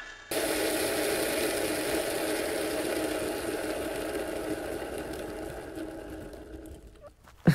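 Scooter engine idling steadily. It starts abruptly and fades away toward the end, and a single sharp knock lands at the very end.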